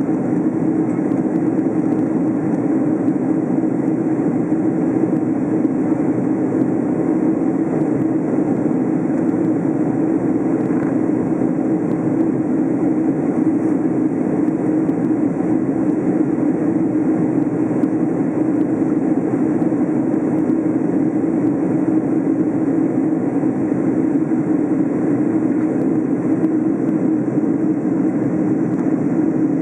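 Steady cabin noise of a Boeing 767 in flight, heard inside the cabin: the twin jet engines and rushing airflow make one even, unbroken drone.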